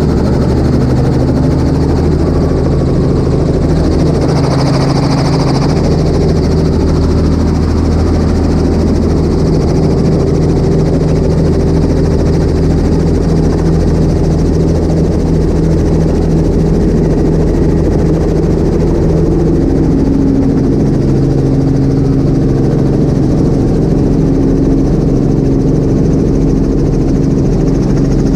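Robinson R44 helicopter running, heard from inside the cockpit: a loud, steady drone of its flat-six piston engine and rotor. The tone shifts about two-thirds of the way through as the helicopter lifts off and moves away over the water.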